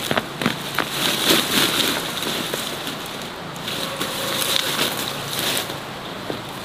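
Ginger plants pulled up by hand: leafy stalks rustling and crackling and roots tearing out of the soil, with a run of sharp crackles in the first second or two.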